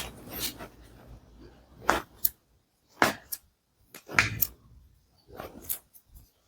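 Short sharp pops and knocks from a chiropractic adjustment of a patient's body, several of them, some in quick pairs, with near-silent gaps between.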